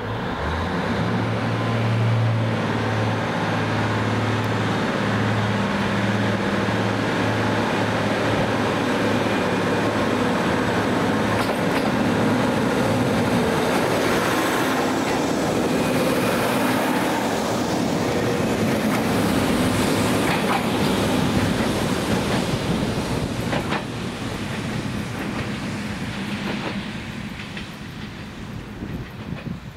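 SKPL diesel railcar SN83-006 departing: its diesel engine opens up with a deep drone, then the cars roll past close by with wheel rumble and a few clicks over rail joints. The sound fades as the train moves away near the end.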